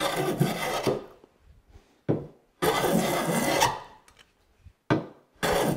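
Jack plane with a cambered iron cutting a thick shaving along the edge of a wooden board, shaving the high corner down to square the edge to the face. Two long planing strokes of about a second each, with a few shorter strokes between them.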